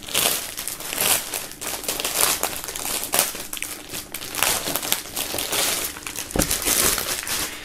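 Clear plastic bag around a folded T-shirt crinkling and rustling as it is opened and the shirt is slid out, with irregular crackles throughout.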